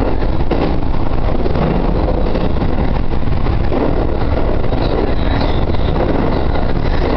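Steady running noise of a JR Central 313 series electric train under way, heard from inside behind the cab: a continuous rumble of wheels on rail and body noise.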